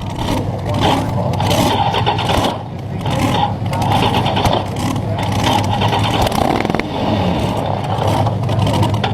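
Slingshot dragster engine running steadily after being fired up.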